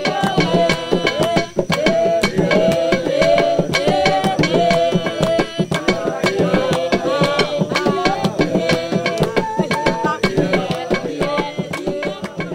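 Background music: hand drums playing a quick, steady rhythm under a wavering melody line.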